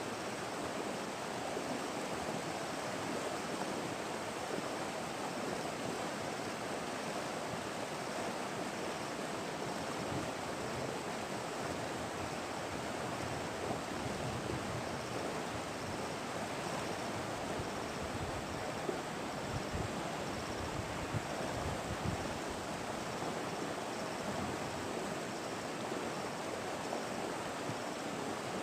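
Steady rush of flowing river water, an even continuous noise, with a few faint low thumps about two-thirds of the way through.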